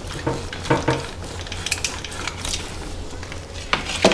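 A chef's knife cutting into raw seasoned chicken legs on a foil-lined baking tray: short scrapes and crinkles of foil and soft wet handling noises. Near the end there is a sharper knock as the knife is laid down on a plastic chopping board.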